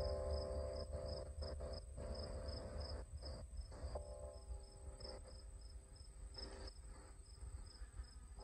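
A cricket chirping steadily in a high, regular pulse, about three chirps a second. Honey bees buzz on and off at the lotus flower, near the start and again about four seconds in.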